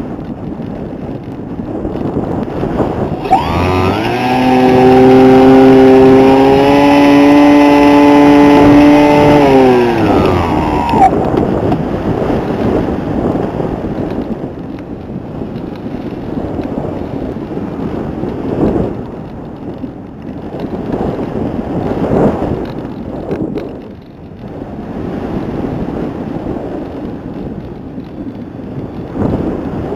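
RC helicopter in flight, heard from its own onboard camera: rough rotor and wind rush over the microphone. About three seconds in, a loud pitched motor drone rises slowly in pitch and holds for about seven seconds, then falls away around eleven seconds.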